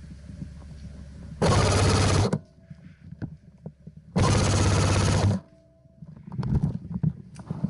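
Airsoft gun firing two full-auto bursts, the first about a second and a half in and the second, slightly longer, about four seconds in, each a fast buzzing rattle of shots that starts and stops abruptly.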